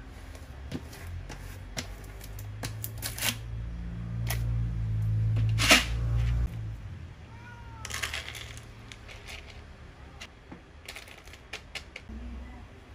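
Dry cat kibble rattling and clicking into a plastic bowl, with a louder low rumble and a sharp knock about six seconds in. A cat meows once, a couple of seconds later.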